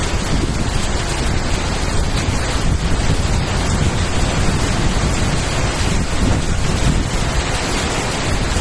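Heavy rain pouring down steadily, with wind buffeting the microphone in a low rumble.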